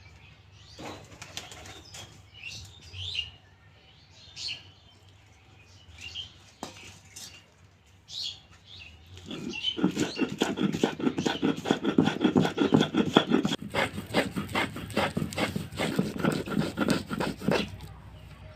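Small fish and dried puti fish being ground into a bait paste. The work is heard as a run of quick, rhythmic grinding strokes starting about halfway through. Faint bird chirps come before it.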